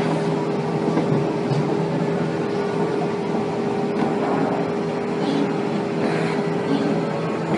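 Gannomat Index 130 Logic CNC drilling and dowel insertion machine running with a steady hum. A few light knocks come about four seconds in as a wooden board is laid on its table.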